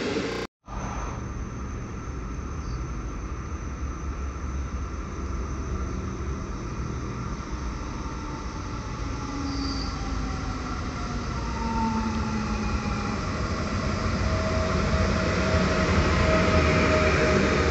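Koleje Mazowieckie electric multiple unit approaching and pulling into the station. The rumble grows louder as it comes alongside, with whines that fall in pitch as it slows.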